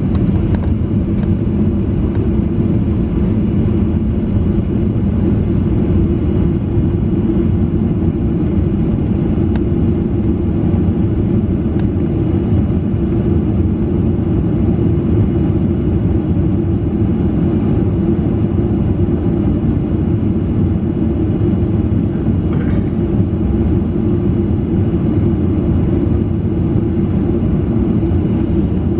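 Steady low rumble inside a jet airliner's cabin as it taxis, the engines at idle thrust and the wheels rolling over the taxiway concrete.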